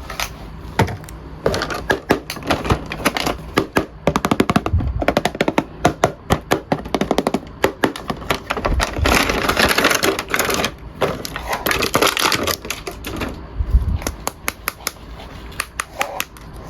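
Hands handling a plastic action figure and its packaging: rapid, irregular clicks and taps, with a stretch of rustling about halfway through.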